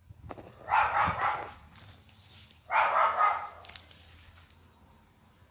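A dog barking in two short bouts of a few quick barks each, about two seconds apart.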